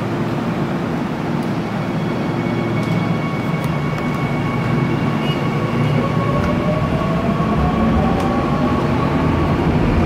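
Subway train running in the station: a low rumble that grows from about halfway, with an electric whine rising in pitch in the second half.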